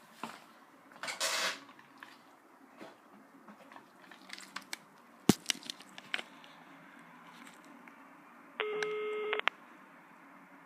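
Scattered clicks and knocks, the loudest a single sharp click about halfway, then a steady electronic beep lasting just under a second near the end.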